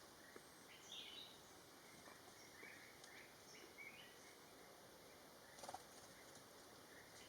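Faint, scattered chirps of small birds over a quiet outdoor background hiss, with a brief click about five and a half seconds in.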